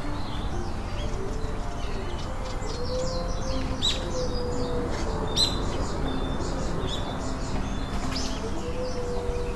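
Many birds chirping and twittering in quick, overlapping calls, with a few sharper, louder chirps standing out, over a steady low rumble.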